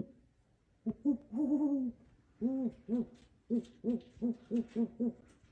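Owl hooting: a few drawn-out hoots, then a quicker run of short hoots, about three a second, in the second half.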